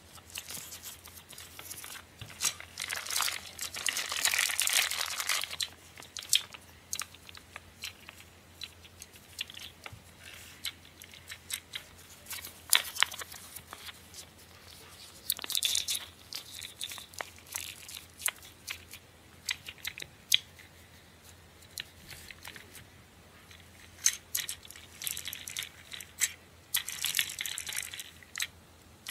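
Crinkling and rustling of a plastic wrapper and paper sheets being handled, in irregular bursts, loudest a few seconds in. Scattered sharp clicks and taps of a small plastic toy piece run throughout.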